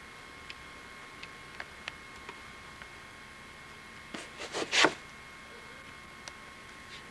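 Kittens playing on and around a small box: sparse light ticks and taps, then a quick run of four or five scratchy rustles about four seconds in, growing louder. A steady faint high whine sits underneath.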